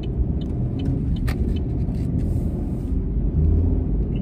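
Car cabin noise while driving: a steady low rumble from the engine and tyres on the road, with a few light clicks.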